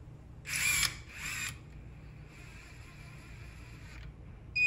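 A brushless electric screwdriver runs through a tightening cycle on a screw: two short loud bursts of motor whirring, then a steadier, quieter whine for about two seconds. Near the end the controller gives a short high beep as the screw reaches its target torque and the cycle is passed OK.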